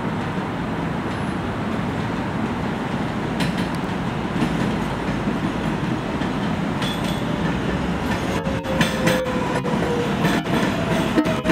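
An NYC Subway 7 train running in on an elevated steel structure: a steady rumble that grows louder as it comes closer. In the last few seconds a whine falls slowly in pitch, and sharp clicks come from the wheels.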